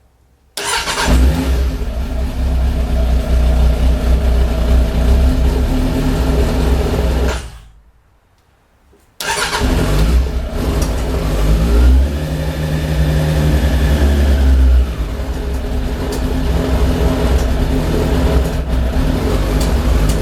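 2006 Suzuki GSF1200 Bandit's carburetted inline-four engine starts, runs for about seven seconds and dies, then starts again about nine seconds in and is revved up between roughly 12 and 15 seconds. The engine has been sneezing back through the carburettors just off idle since its valves were adjusted, which the owner blames on intake valve clearances set too tight, and he also doubts that fuel is getting through from the tank.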